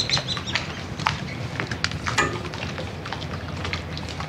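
Scattered light clicks and knocks of a shore power cable and its plastic plug being handled and coiled by hand, over a steady low background rumble.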